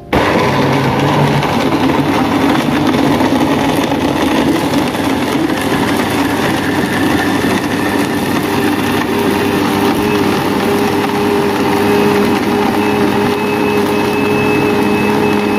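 Electric blender switched on and running steadily at full speed, grinding garlic, ginger, turmeric, chillies and palm sugar with water into a smooth spice paste.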